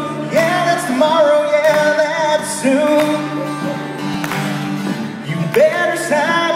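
A man singing a country-rock song to guitar accompaniment, holding long, wavering notes.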